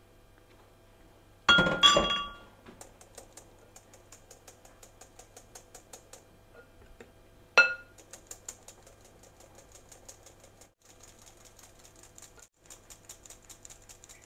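Cake flour being sifted through a mesh sieve over a glass bowl: a fast run of light taps, about four or five a second, as the sieve is tapped and shaken. A loud ringing clink of the bowl against the sieve comes about a second and a half in, and another sharp clink near eight seconds.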